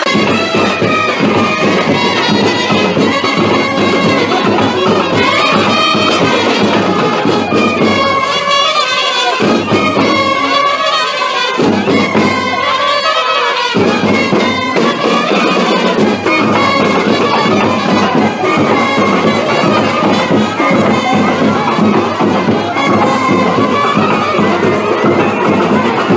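Loud instrumental music: a wavering melody line over dense, continuous accompaniment.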